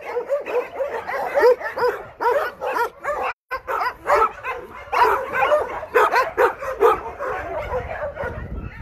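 Several shelter dogs barking and yipping at once behind kennel fences, a dense run of short, rapid, overlapping barks. The sound cuts out for a moment about three and a half seconds in.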